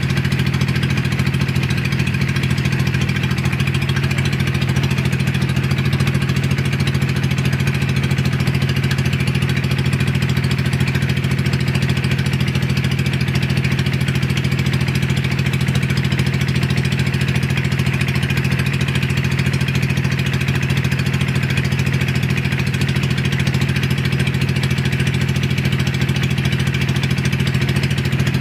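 Engine of a motorized outrigger boat (pumpboat) running steadily under way: a constant low hum that doesn't change, with water splashing against the hull and outrigger.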